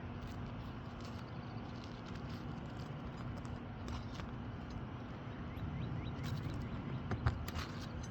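Outdoor background noise with a steady low hum, a bird chirping a quick run of notes partway through, and a few knocks and clicks in the second half, the sharpest about seven seconds in.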